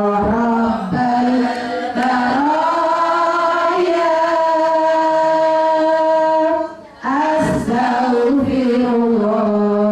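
A woman singing a melodious Islamic prayer chant into a microphone, holding long, drawn-out notes, with other women's voices joining along. There is a short break for breath about seven seconds in.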